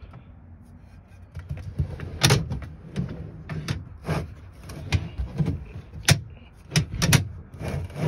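Metal ICECO refrigerator slide being set on the cabinet and shifted into place, its rails sliding: a run of sharp clanks and knocks, loudest about two seconds in and again near the end.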